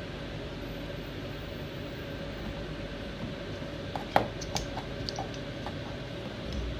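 Light handling noise from plastic fittings and tools: a sharp click about four seconds in, then a few lighter clicks and taps. Under it is a steady low hum with a faint steady tone.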